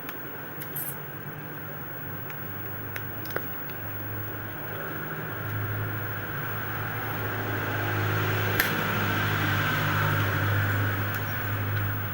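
Scattered sharp clicks and scratchy scraping of a blade prying the plastic back cover off a Samsung Galaxy A50 phone, over a steady low hum. The scraping grows louder in the second half.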